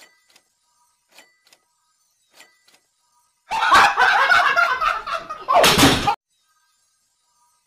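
Three faint short taps about a second apart, then a man screaming and laughing loudly, with a crash as he tumbles over, cutting off suddenly.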